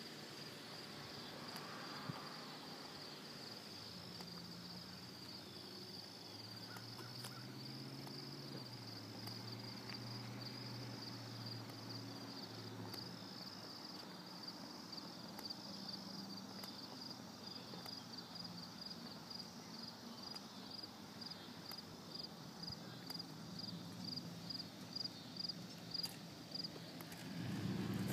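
Crickets chirping faintly in a steady, evenly pulsed high trill. A faint low hum sits underneath for a while in the first half.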